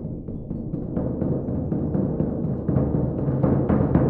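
Music built on a large drum struck with mallets, a steady pulse of about four hits a second over low sustained tones, growing louder near the end.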